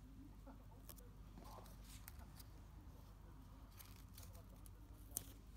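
Near silence over a low steady hum, with a few faint clicks and taps from fingers handling a paper sticker and pressing it onto a card. One sharper click comes about five seconds in.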